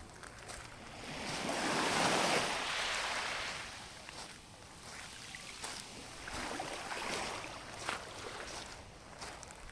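Sea waves washing onto the shore. One larger wave swells up about a second in and dies away by about four seconds, followed by smaller washes.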